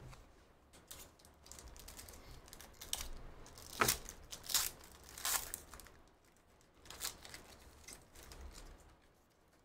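Foil trading-card pack being torn open and crinkled by hand: a run of sharp crackles and rips, loudest in the middle, tailing off near the end as the cards are slid out.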